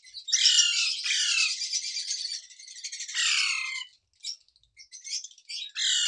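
Ringneck parakeet chicks giving harsh, high begging calls, several at once, many falling in pitch, as they are hand-fed from a syringe. The calls thin out about four seconds in and pick up again near the end.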